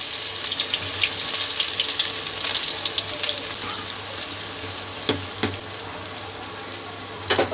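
Chopped onions sizzling and crackling in hot oil in a kadhai, loudest at first and settling gradually as a ladle stirs them. A few sharp knocks come about five seconds in and again near the end.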